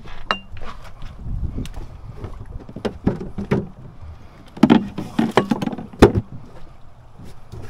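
Irregular knocks and thumps on a small boat, with a low rumble underneath; the loudest knock comes about six seconds in.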